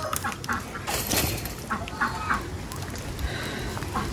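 Farmyard poultry calling, chickens and ducks giving short, repeated clucks and quacks, with a brief rush of noise about a second in.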